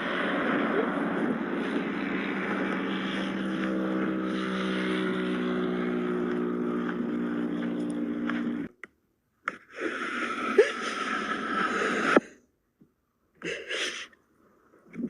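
An engine-like motor running steadily, stopping abruptly about two-thirds of the way through, then a shorter stretch of similar noise.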